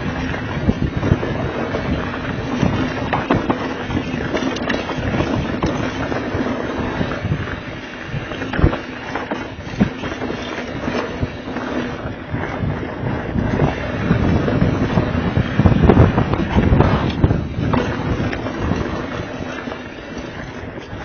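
Diamondback Mission mountain bike descending a rough dirt-and-rock trail: wind rushing over the microphone, tyres crunching over dirt and rock, and a steady stream of rattling knocks from the bike over roots and stones, loudest about three quarters of the way through.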